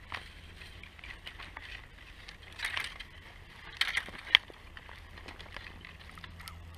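Spinning reel and rod worked during the fight with a hooked catfish: scattered clicks and scrapes, the sharpest click a little past four seconds in.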